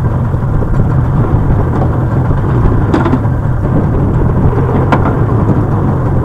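A small wooden fishing boat's engine running steadily under way, a low, even drone, with two short sharp knocks about three and five seconds in.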